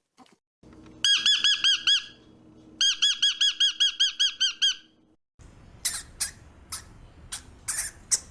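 An animal's calls: two quick trills of high, pitched chirping notes, about eight a second, then a few sharp, short squeaks.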